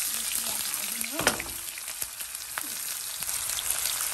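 Sliced onions sizzling steadily in very hot oil in a thick wok, just added to be browned. A few short clicks sound over the sizzle, about a second in and again past the middle.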